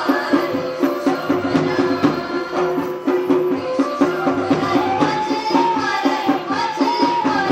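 Himachali folk dance music: drums beating a steady, even rhythm under a wavering melody line.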